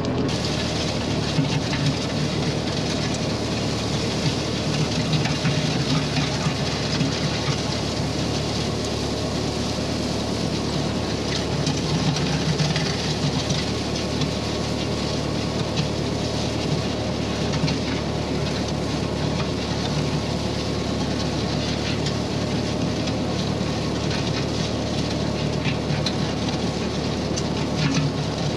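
Ford 8N tractor's four-cylinder flathead engine running steadily on its new replacement carburetor. Over it, the rear box blade scrapes gravel and dirt with a continuous crunching hiss.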